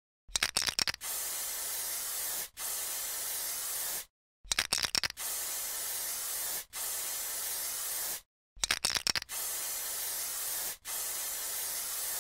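Aerosol spray paint can: a quick rattle of the mixing ball, then two long hisses of spray. The same sequence plays three times over.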